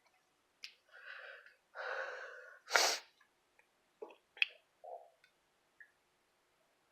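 A person breathing heavily twice, then a short, sharp burst of air through the nose just before three seconds in. A few small mouth clicks and sniffs follow.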